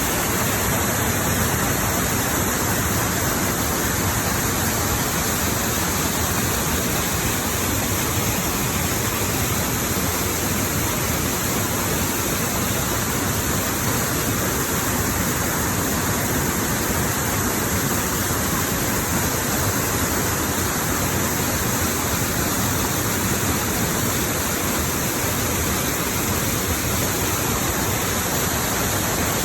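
Fast-flowing water rushing steadily, a constant full hiss without a break.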